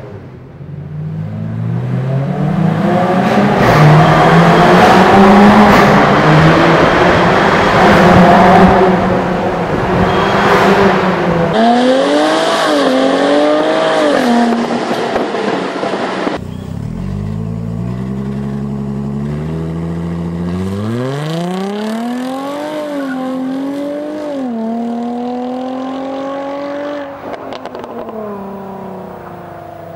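Jaguar F-Type's supercharged engine and exhaust accelerating hard, its pitch climbing through the revs and dropping at each gear change. The first ten or so seconds are loudest, with a dense, harsh exhaust note. Later stretches have the revs rising and falling in clear steps.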